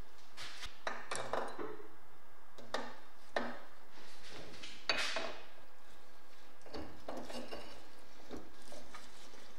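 Irregular metal clinks, clicks and short scrapes of bicycle parts being fitted together by hand: a BMX bottom bracket with greased loose steel ball bearings and a crank arm going onto its axle.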